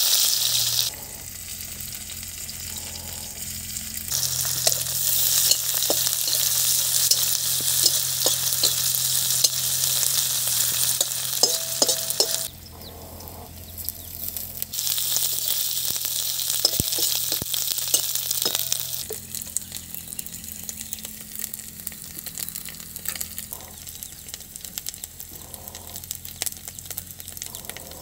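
Sliced onions sizzling in hot oil in a steel wok, stirred with a flat metal spatula that ticks against the pan. The sizzle drops away and swells up again several times.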